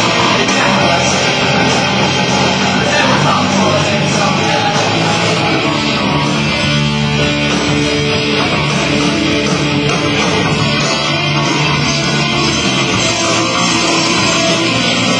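A rock band playing live and loud, with electric guitars to the fore, heard continuously without a break.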